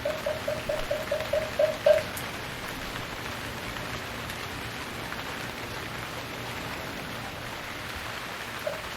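Moktak (Buddhist wooden fish) struck in a quick run of even, hollow knocks, about five a second, ending on a louder stroke about two seconds in. After that comes a steady rain-like hiss until the knocking starts again near the end.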